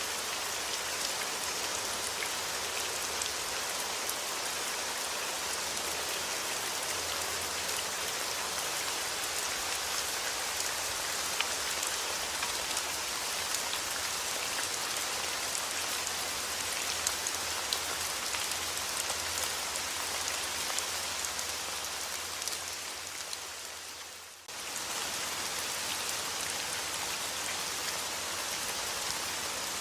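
Steady rain falling, an even hiss of many drops. About 22 seconds in it fades down, then cuts abruptly back to full level a couple of seconds later.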